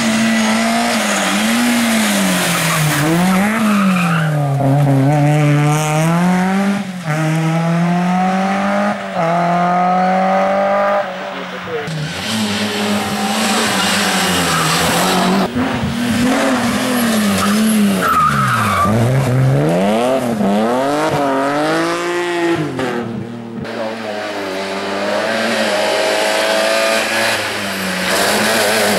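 Rally car engines revving hard, the pitch swooping up and down again and again with gear changes and lifts, with tyre noise on the stage surface. The sound changes abruptly a few times, as if it comes from several separate passes.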